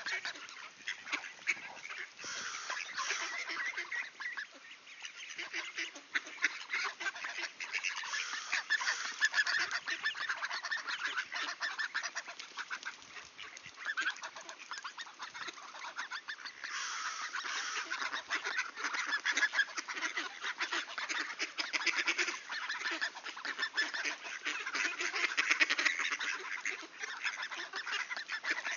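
Flock of mallard ducks calling as they feed: a dense, continuous chatter of many short quacks.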